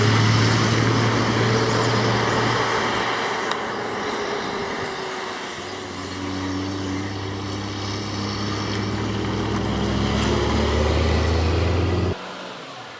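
Heavy logging truck's engine running, its hum dipping and rising a little in pitch through the middle. The sound cuts off abruptly near the end, leaving a much quieter background.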